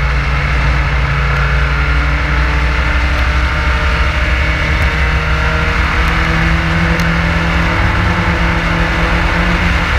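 Race car engine running hard at speed, recorded onboard, with a steady loud note that shifts a little in pitch past the middle.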